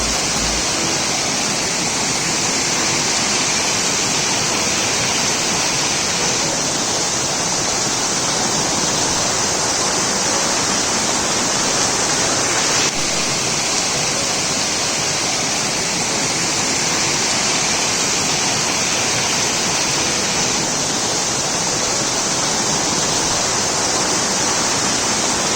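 Steady, loud rushing of water, a dense even hiss with no break in its flow.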